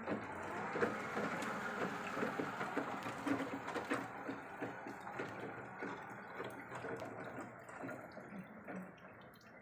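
Wheelchair being driven on a test drive after repair, its wheels rattling and clicking over a rough surface. The sound grows fainter over the last few seconds.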